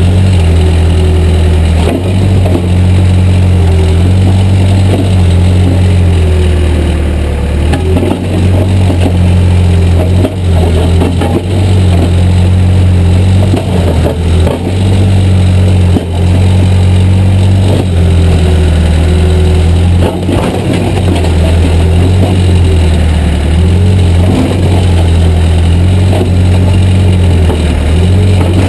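Backhoe's diesel engine running loud and steady, its note shifting as the hydraulics take load while the bucket digs and breaks out tree roots. A hydraulic whine wavers above it, with a few sharp knocks of the bucket on roots and ground.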